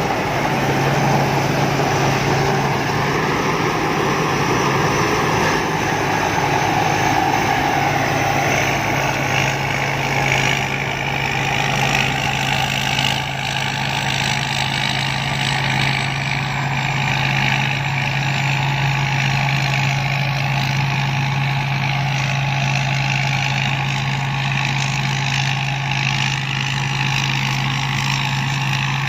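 Combine harvester engine running steadily, with a constant low hum under a dense mechanical noise.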